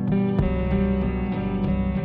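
Background music led by plucked guitar, with a steady bass line beneath.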